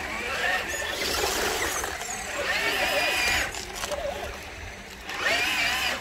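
Electric motor and geared drivetrain of a radio-controlled crawler truck whining in spells of about a second, the pitch rising and falling as the throttle is worked.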